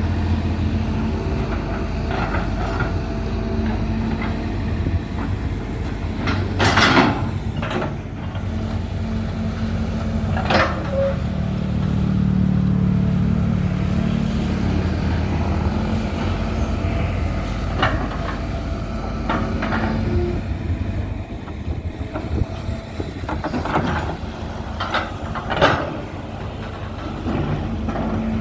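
Hydraulic excavator's diesel engine running steadily, working harder for a few seconds in the middle. Several short, sharp noises stand out over the engine at intervals.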